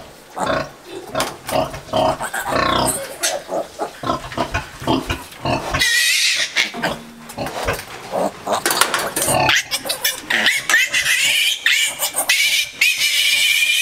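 Newborn piglets squealing and grunting. The calls are short and scattered at first, then turn into high, drawn-out squeals about halfway through, with one long squeal near the end.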